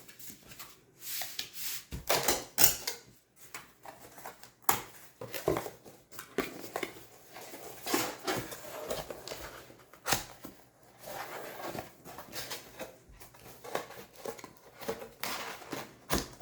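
Corrugated cardboard being folded by hand and its flaps pushed into slots: irregular scraping and rustling with sharp knocks, the loudest about 2.5 s in, about 10 s in and near the end.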